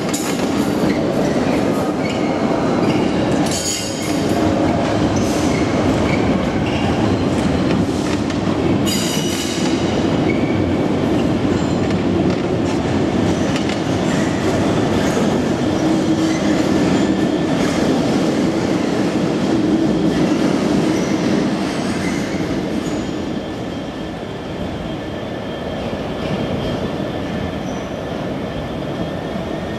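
Class 66 diesel freight locomotive running as it passes, followed by a long train of tank wagons rolling by, with clicks over rail joints and some wheel squeal. The sound grows quieter from about two-thirds of the way through as the train draws away.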